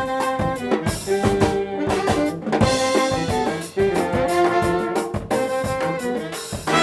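Brass band of trumpets and trombones with a drum kit playing an up-tempo swing-funk tune: short, punchy horn phrases over a steady drum beat.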